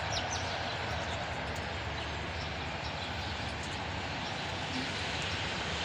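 Steady outdoor background rumble and hiss with no distinct source, with a few faint high chirps.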